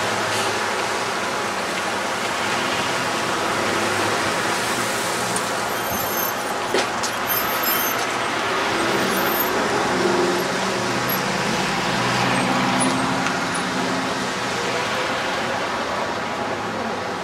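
Road traffic on a wet street: a steady hiss of tyres and running car engines, with one short click about seven seconds in.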